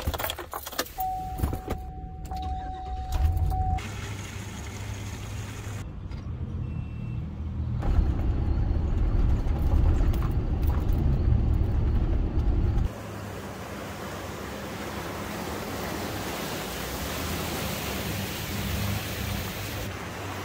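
Keys clicking and jangling at the ignition of a Chevrolet Express van and a steady chime-like tone for a couple of seconds, then the van's engine running as it drives, loudest for several seconds in the middle. Near the end a steady rushing hiss takes over: water sprayed up as the van drives through a flooded track.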